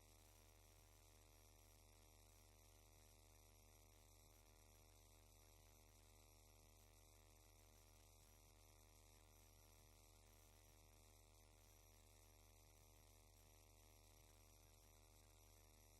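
Near silence: only a faint, steady electrical hum with a little hiss.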